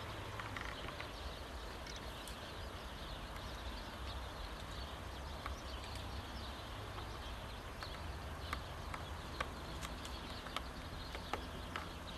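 Faint outdoor background: a steady low rumble and hiss with scattered sharp ticks, several of them in the second half.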